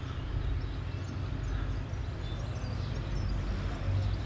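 Outdoor background noise: a steady low rumble with a few faint, short high chirps above it.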